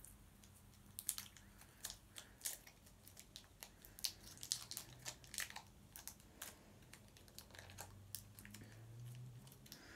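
Wrapper of an individually wrapped chewy sweet being crinkled and torn open by hand, a faint run of irregular crackles and clicks.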